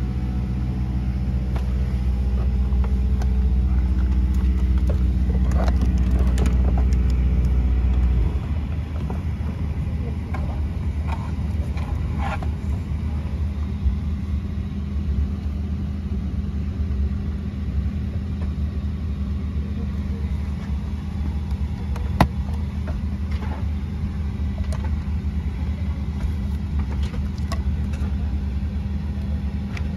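Steady low cabin drone inside a Boeing 737-800, with a stack of hum tones that is louder for the first eight seconds, then drops away to a plainer drone. A few sharp clicks come through, the loudest about twenty-two seconds in.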